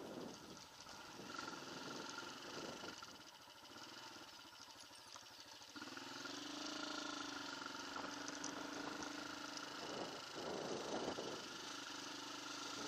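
Off-road motorcycle engine running at low revs; from about six seconds in it runs at a steady pitch. Bursts of rushing noise come near the start and again about ten seconds in.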